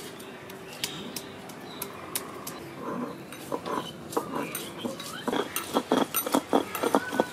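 Stone grinding roller crushing and grinding garlic cloves on a flat stone slab: a few separate knocks and scrapes, then from about five seconds in a quick rhythmic run of strokes, about three a second, as the roller is worked back and forth into a paste.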